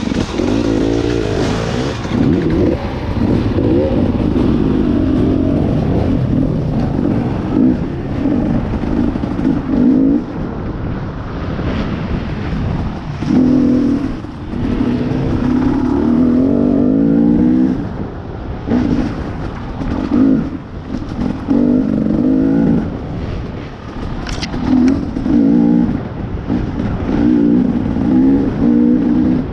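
Two-stroke dirt bike engine riding a trail, revving up and backing off again and again as the throttle is opened and closed.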